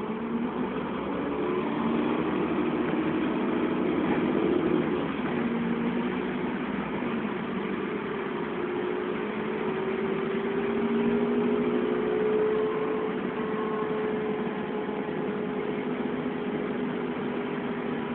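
Dennis Trident double-decker bus engine and drivetrain running as heard from the passenger saloon on the upper deck, growing louder over the first couple of seconds and then holding steady, with an engine note that slowly climbs in pitch through the middle.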